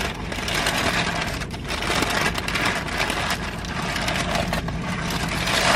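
Paper fast-food wrappers and bags rustling and crinkling as the food is unwrapped and handled, a dense irregular crackle.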